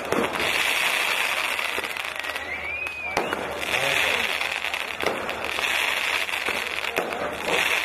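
A string of firecrackers bursting in a rapid, continuous crackle, with a brief whistle gliding up and down about two and a half seconds in.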